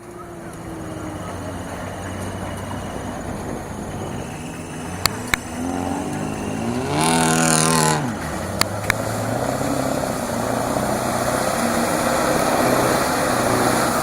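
Scania V8 diesel engine of an off-road 4x4 truck running under load, the revs climbing a little past the middle to the loudest stretch and then dropping back. A few sharp knocks come shortly before the revs climb and twice just after they fall.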